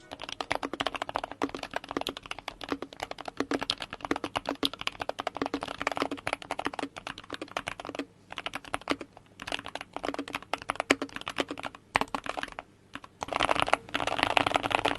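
Keychron K2 HE magnetic (Hall effect) switch mechanical keyboard being typed on fast, with many rapid keystroke clicks. There are a few short pauses in the second half and a dense flurry of keystrokes near the end.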